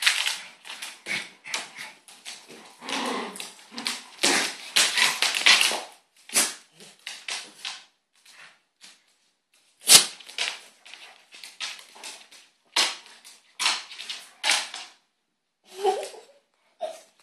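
Two dogs play-fighting on a hardwood floor: a fast, irregular run of jaw snaps, scuffling and claw clicks, with short growls mixed in, busiest in the first few seconds and with one sharp loud snap about ten seconds in.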